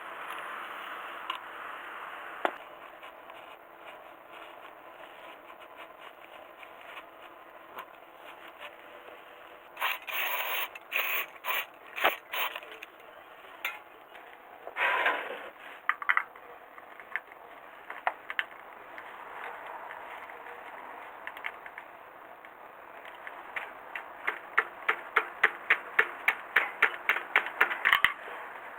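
Metal tools being handled during car maintenance: scattered clicks and scrapes, with a run of quick, even clicks near the end.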